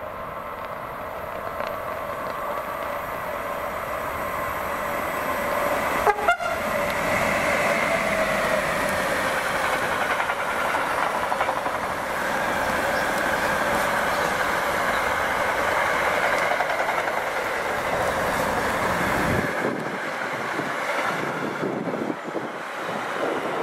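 Siemens Vectron electric locomotive drawing a freight train of double-deck car-carrier wagons, growing louder as it approaches, with a sharp knock and a tone that bends down in pitch about six seconds in as it passes. After that comes the steady rolling clatter and wheel ring of the loaded wagons going by.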